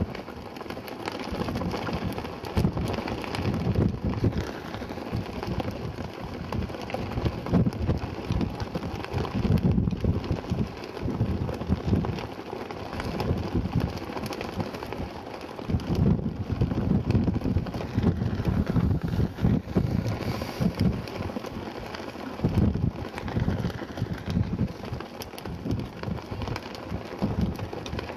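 Strong wind buffeting the camera microphone, a continuous rush with irregular low gusts that swell and drop every second or two.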